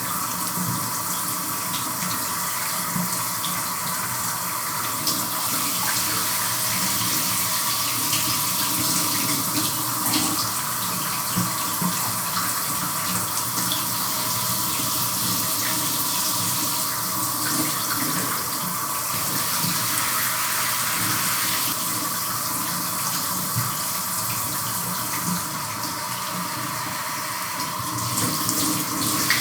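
Shower running: a steady spray of water with small shifts in its sound as the stream is broken up by someone showering.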